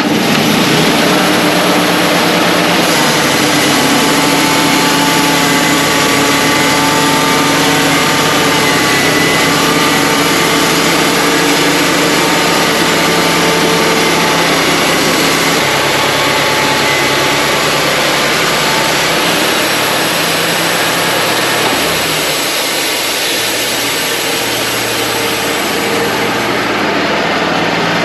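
Wood-Mizer LT35 portable band sawmill running steadily, a loud, even noise with faint held tones that drift in pitch during the first half.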